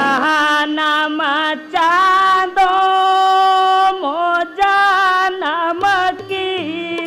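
A high solo voice singing a melody of long held notes with sliding, wavering ornaments, over a steady drone.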